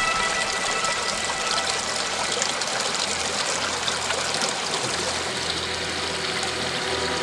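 Small shallow stream flowing over stones: a steady rippling trickle of running water.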